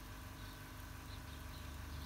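A stream of water from the tap of a wood-fired water heater splashing steadily onto concrete, with a few faint high chirps over it.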